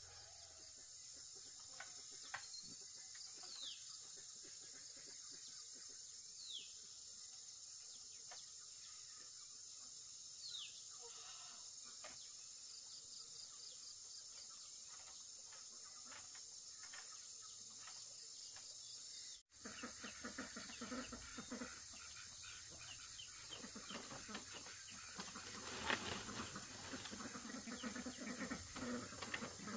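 Steady, high-pitched chorus of insects, with a bird giving three short falling whistles in the first half. After a cut about two-thirds in, scattered clicks and knocks join, with one louder knock near the end.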